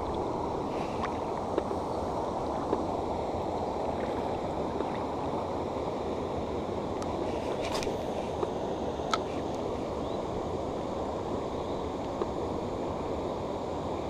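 Steady rushing of flowing river water, with a few faint, short clicks scattered through it.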